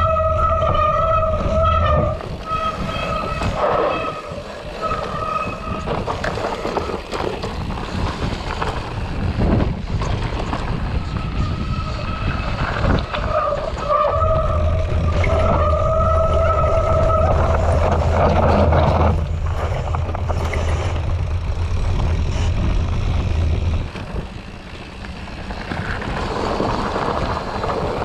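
Mountain bike rolling fast down a trail: tyres rumbling over rough ground and wind noise, with a steady humming whine from the bike that drops out for several seconds at a time and returns.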